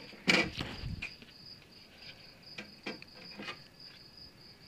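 A cricket chirping steadily in a fast, pulsing high trill. A sharp clatter comes about a third of a second in, the loudest sound, with a few light clicks later, as a handsaw's blade cover is fitted back on.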